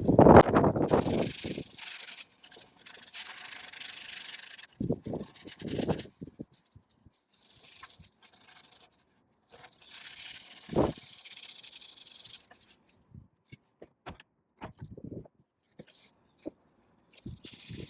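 Abrasive rubbing on a car's steel body panel, in several stretches of strokes with pauses between, typical of sanding or keying bare metal by hand before filler. A short knock sounds about halfway through.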